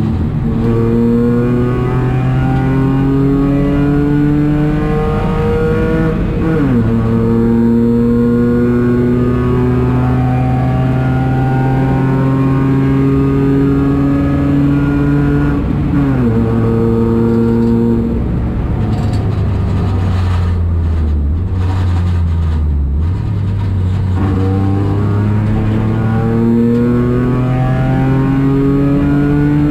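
Citroën C1 race car's engine pulling hard through the gears. The revs climb steadily, then fall sharply at upshifts about six and sixteen seconds in. Past the middle the revs drop and hold lower for a few seconds, then climb again near the end.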